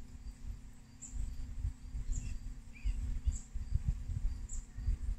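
Outdoor background: an uneven low rumble and a steady low hum, with a faint, short, high chirp repeating about once a second.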